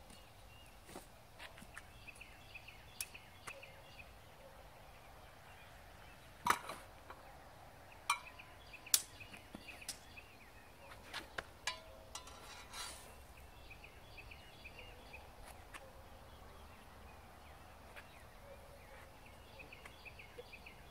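Steel swords and bucklers clashing in a handful of sharp metallic strikes, clustered from about six to thirteen seconds in, one leaving a brief ring. Birds chirp faintly throughout.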